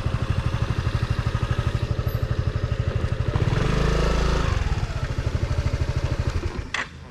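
Motorcycle engine idling with an even pulsing beat, swelling louder for about a second midway, then cutting off near the end as it is switched off; a couple of sharp clicks follow.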